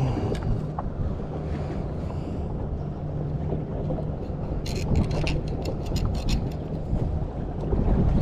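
Small boat's outboard motor running steadily at low speed, with wind on the microphone. A quick run of light clicks comes about five seconds in.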